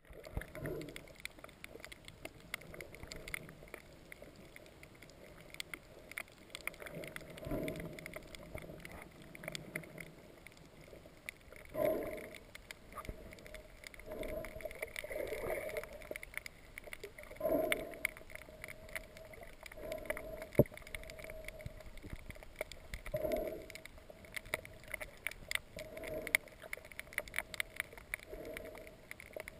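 Muffled underwater noise through a camera's waterproof housing: a faint crackle of small clicks throughout, with a swell of sloshing water noise every two to three seconds.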